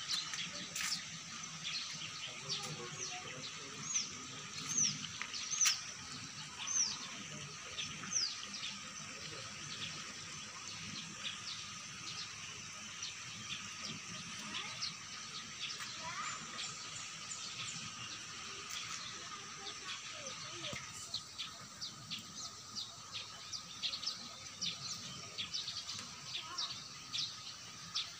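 Birds chirping outdoors: a run of short, high, falling chirps, loudest in the first third, over a steady background hiss.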